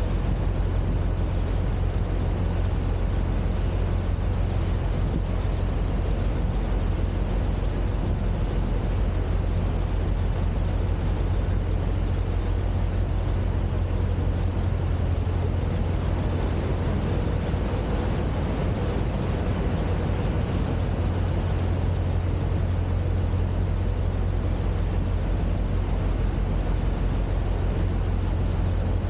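Boat engine running steadily under way, a constant low drone with an even hiss over it.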